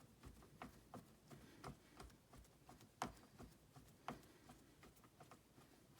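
Faint scattered clicks and small knocks, with two sharper knocks about three and four seconds in, from work on a recliner's handle as it is fitted back on.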